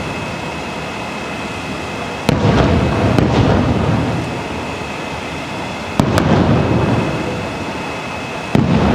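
Aerial fireworks shells bursting: three sudden booms, about two seconds in, six seconds in and near the end. Each is followed by a long rolling rumble that dies away.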